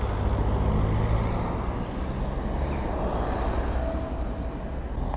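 Motorcycle engine running at low speed, a steady low drone that eases off slightly after the first second or so.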